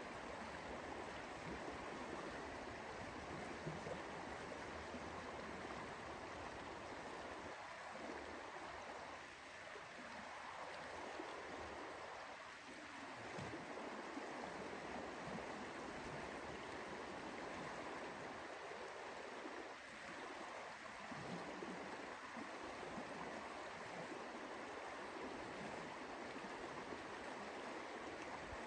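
The Lower Deschutes River flowing: a steady, faint rush of moving water.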